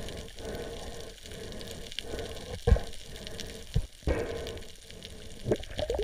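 Underwater ambience picked up by a camera in its housing: a steady crackling hiss, with a few sharp, dull knocks about halfway through as the speared parrotfish and spear shaft are handled.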